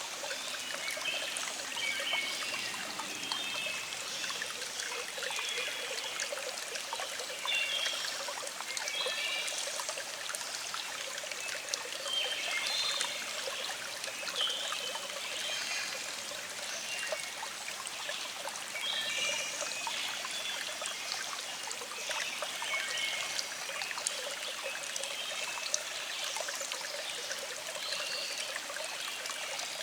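Small stream flowing and trickling steadily, with birds singing in the background: short high chirps and phrases repeating throughout.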